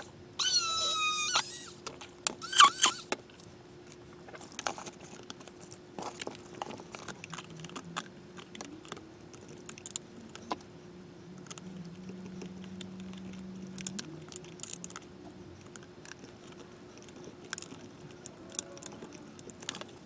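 Plastic and metal parts clicking, knocking and rattling as a CPU water-cooler radiator and its hose are worked into a plastic bin, over a faint steady hum. In the first few seconds there are two short squeals, each falling in pitch.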